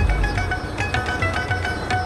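Background music: a melody of short stepping notes over a steady low bass, with no drums in this stretch.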